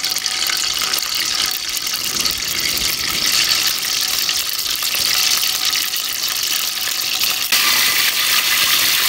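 Steady hiss of a gas stove burner heating a karahi of cooking oil, getting louder about seven and a half seconds in.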